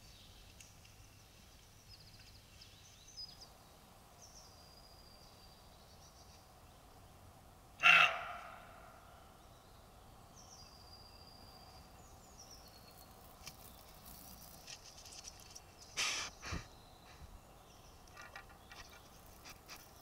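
Woodland ambience picked up by a trail camera's microphone: faint, scattered bird song throughout. About eight seconds in comes one sudden loud noise that dies away over half a second, and near the end two short knocks.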